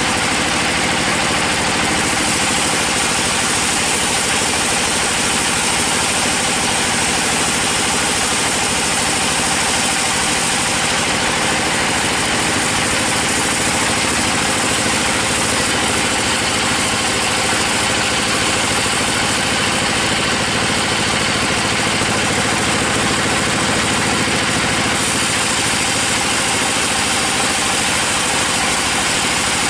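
Bandsaw mill sawing lengthwise through a teak log: a steady, loud machine drone with the rushing noise of the band blade cutting the wood.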